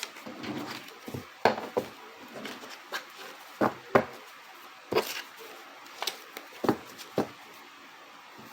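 Cards being handled and set down on a table: about a dozen sharp, irregular taps and clicks, ending a little after seven seconds in.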